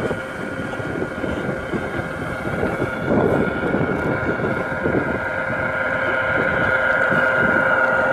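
Large-scale (G-scale) model diesel locomotive running along garden-railway track towards the microphone, giving a steady mechanical hum that grows louder as it approaches.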